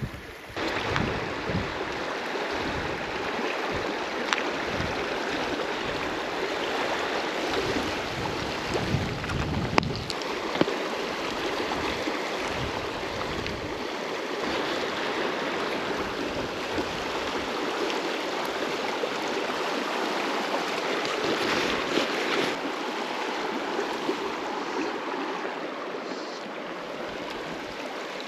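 Steady rush of a flowing river, with gusts of wind on the microphone in the first half and a few small clicks.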